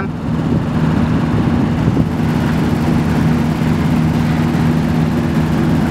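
Sailboat's engine running steadily under way, a low even hum over a constant rush of noise.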